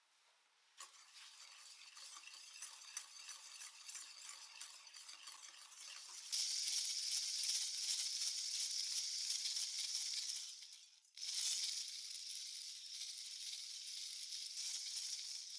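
Electric mixer with a whisk attachment whirring and beating a liquid in a glass bowl, whipping instant coffee, sugar and water into a thick foam. It starts just under a second in, gets louder at about 6 seconds, stops briefly about 11 seconds in, then carries on.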